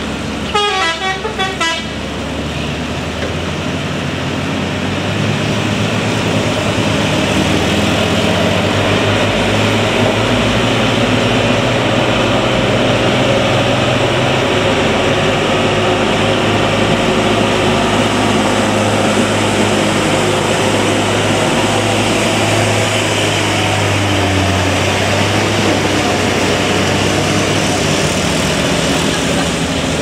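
A quick run of horn toots stepping in pitch, then a heavy truck's diesel engine labouring up a steep grade. The engine grows louder from about three seconds in and stays loud and steady.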